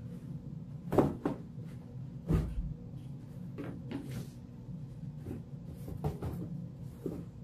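Dresser parts being handled during assembly: a series of about eight wooden knocks and clunks, the loudest about a second in and again near two and a half seconds.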